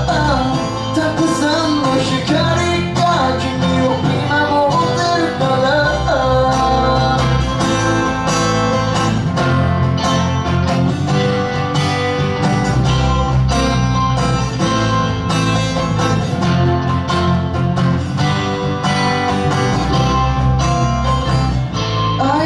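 Live pop-rock band playing: strummed acoustic guitar, electric guitar and electric bass, with a man singing over the first few seconds and coming back in near the end; the middle is an instrumental stretch.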